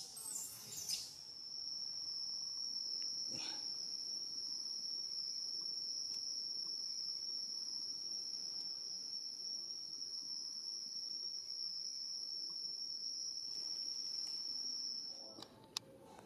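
A steady, high-pitched insect drone, one unbroken tone that cuts off suddenly near the end. In the first second, a few short, high squeals from a baby monkey sound over it.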